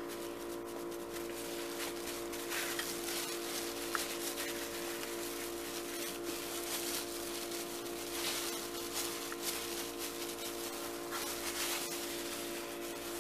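Thin plastic disposable gloves crinkling and rustling in irregular bursts as hands press and shape mashed potato, over a steady hum.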